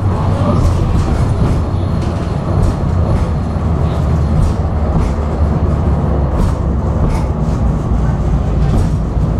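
Tram running along its track, heard on board: a steady low rumble of motors and wheels on rail, with scattered light clicks.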